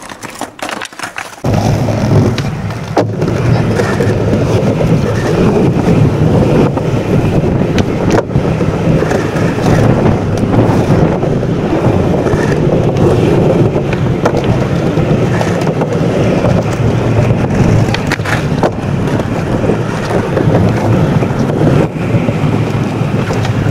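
Skateboard wheels rolling over the ground, a loud steady rumble, with a few sharp clacks now and then.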